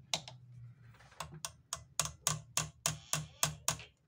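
Rapid, even metallic clicking, about four a second, pausing briefly near the start and then resuming: the needle-bar mechanism of an Olimpia zigzag sewing machine being worked by hand with pliers to loosen it.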